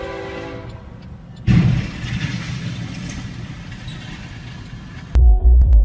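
A train horn sounds a steady chord of several tones that fades away within the first second. About a second and a half in comes a sudden loud bang with a noisy rush that slowly dies down. Electronic music with a heavy thumping beat starts near the end.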